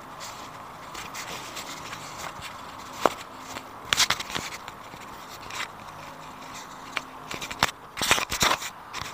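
Scattered sharp clicks and cracks over a soft rubbing of hands on cloth. They come singly, then in clusters about four seconds in and again near the end, as a therapist presses down on a patient's back in a spinal manipulation; the clicks are the back's joints popping.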